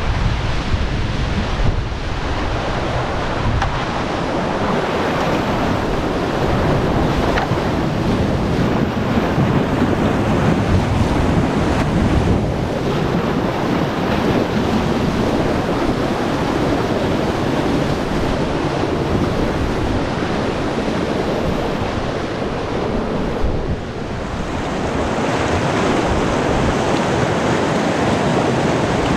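Steady rush of river whitewater, with wind buffeting the microphone.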